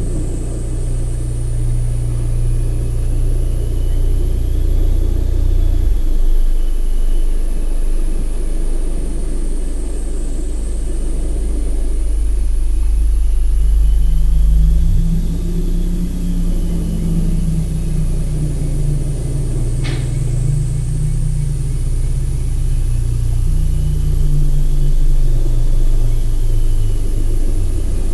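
Low, rumbling drone of sustained deep tones that shift pitch in steps every several seconds, one shift gliding quickly upward, with faint high tones slowly sweeping up and down above it and a single sharp click about twenty seconds in.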